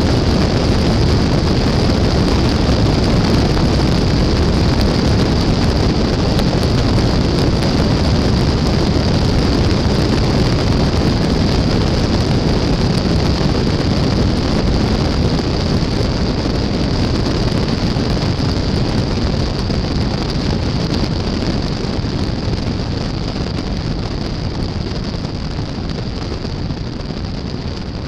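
Mooney light airplane's piston engine and rushing airflow picked up by a camera mounted outside at the tail tiedown, mostly wind noise. A loud steady rush that eases off gradually over the last several seconds.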